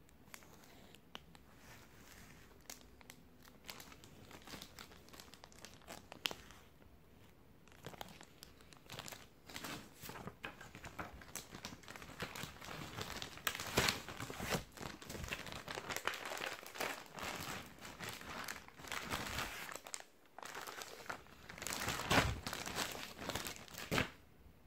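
Thin clear plastic packaging crinkling and tearing as it is pulled off and handled, along with rustling paper. The crackling gets busier and louder about a third of the way in and peaks twice near the middle and end.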